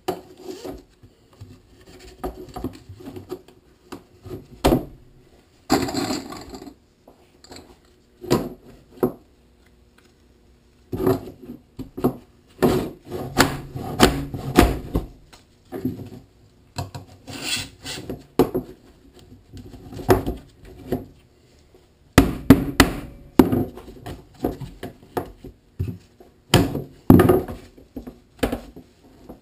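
Plastic pipe and elbow fittings knocking and scraping on a wooden workbench as they are pushed together and slid through the sleeves of a fabric hammock. The knocks are irregular, with a couple of longer rubbing scrapes about six and eighteen seconds in.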